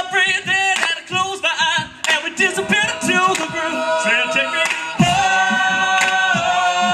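An a cappella group singing: a male lead voice sings into a microphone over backing voices, with sharp percussive hits keeping the beat. About five seconds in, the voices settle into a long held chord.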